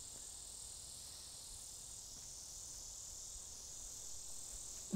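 Steady, high-pitched chorus of insects chirring in the background.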